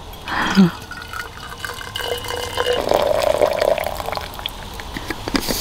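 Hot water poured from a stainless steel kettle into a narrow-mouthed insulated bottle, the filling note rising slightly as the bottle fills. A short gliding sound comes about half a second in.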